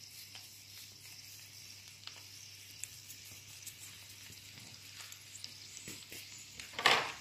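Butter sizzling quietly in a frying pan under boiled potatoes, a steady hiss dotted with small pops. A short louder rush of sizzle near the end.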